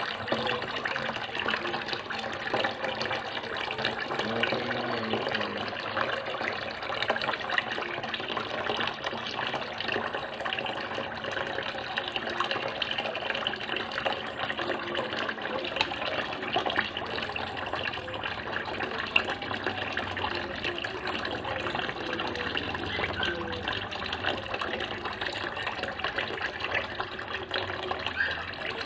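Tap water pouring steadily into a basin of water while hands rinse and rub raw squid in it, with small splashes and sloshing throughout.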